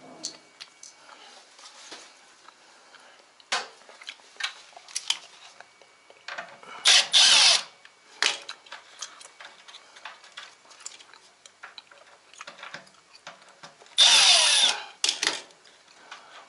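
Power driver briefly spinning screws out of a washing machine's panels in two short bursts about seven seconds apart. Light clicks and taps of screws and small metal parts being handled come in between.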